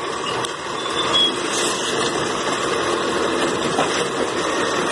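Automated side-loading garbage truck running steadily while its hydraulic arm lifts a wheeled trash cart up over the hopper to tip it.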